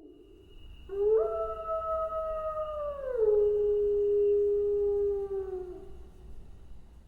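A wolf howling: one long howl that swells in about a second in, holds, drops to a lower pitch about three seconds in and fades away near the end.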